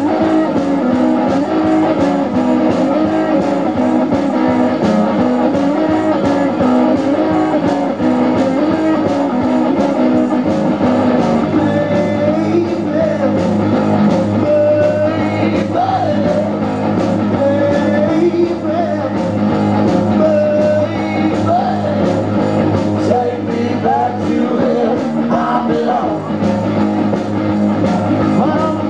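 Live garage rock played loud on stage: electric guitar over a steady beat, with singing.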